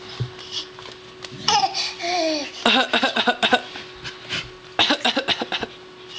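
A toddler's put-on coughing: two runs of quick breathy bursts, about a second each, close to laughter, with a few short squeaky vocal sounds before them.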